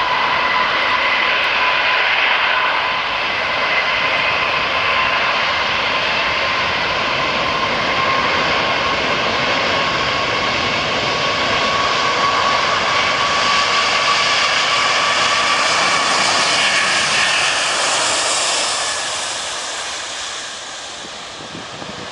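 Airbus A380's four jet engines at takeoff power during the takeoff roll: a steady jet roar with a thin whine that edges slightly up in pitch. It grows hissier as the airliner passes, then fades over the last few seconds.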